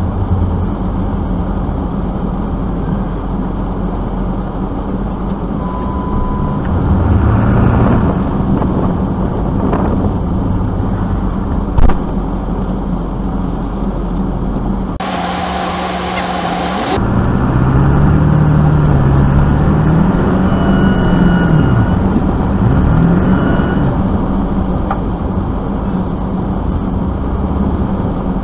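Vehicle engine running, its revs rising and falling several times, with a single sharp knock about twelve seconds in.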